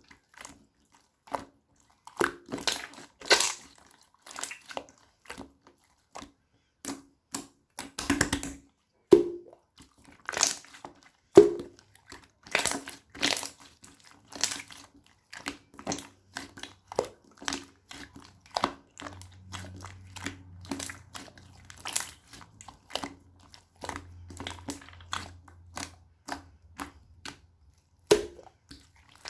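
Slime being squeezed and poked by hand, giving a run of irregular sharp clicks, pops and crackles.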